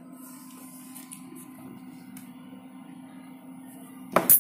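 A steady low hum, then about four seconds in music starts loudly from a boAt Rugby portable speaker.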